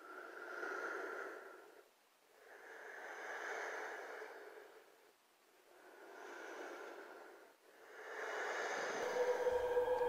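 Quiet, slow, heavy breathing: four long breaths that each swell and fade, with silent gaps between. A low steady musical tone creeps in under the last breath.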